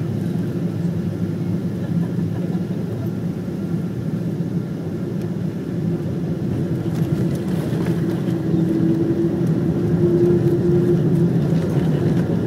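Cabin noise of a Boeing 777-200 on landing, heard from a seat by the wing: a steady hum from its Pratt & Whitney PW4077 engines and the airflow, growing louder and rougher in the second half as the aircraft touches down and the spoilers rise on the wing.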